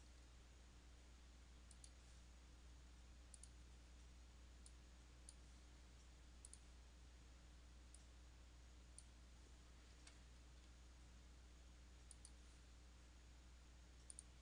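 Faint computer mouse button clicks, about a dozen scattered through, several in quick pairs, over a steady low electrical hum.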